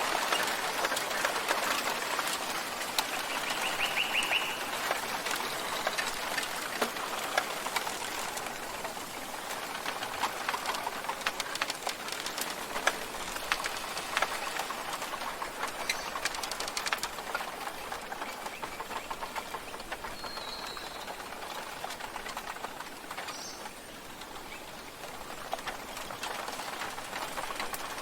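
A few short bird chirps, including a brief trill about four seconds in and a rising chirp near the end, over a steady rushing wash with dense small clicks and crackles throughout.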